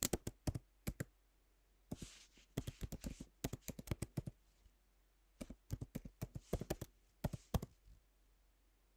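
Typing on a computer keyboard: quick runs of key clicks in three bursts with short pauses between them.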